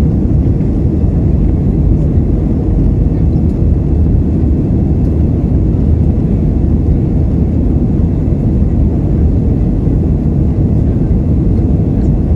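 Steady low rumble of an Airbus A320's engines and airflow heard inside the passenger cabin from a window seat over the wing, even and unchanging throughout.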